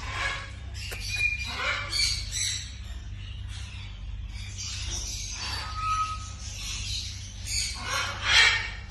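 Parrots squawking in a series of short, harsh calls, the loudest near the end, over a steady low hum.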